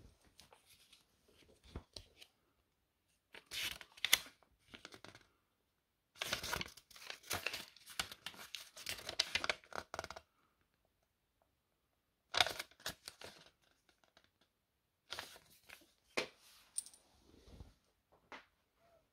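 Paper instruction leaflet being handled and its pages turned, rustling in several bursts with quiet pauses between.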